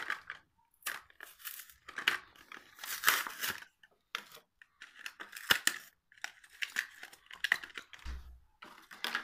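A Hot Wheels blister pack being torn open by hand: the cardboard card tears and the plastic blister crinkles in irregular bursts, with a sharp snap about five and a half seconds in.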